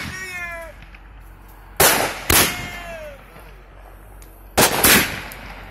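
Large aerial firework going off: two pairs of loud, sharp bangs about half a second apart, the first pair about two seconds in and the second about four and a half seconds in.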